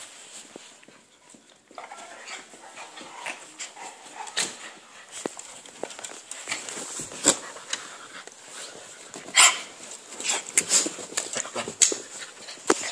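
Pet dogs play-fighting close up: scuffling with short, irregular dog vocal bursts, the loudest a little past halfway.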